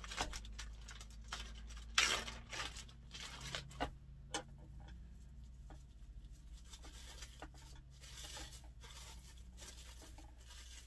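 Plastic zip bag crinkling as a block of cheese is taken out of it, loudest about two seconds in, followed by scattered light clicks and knocks of the grater and plastic bowl being handled, over a steady low hum.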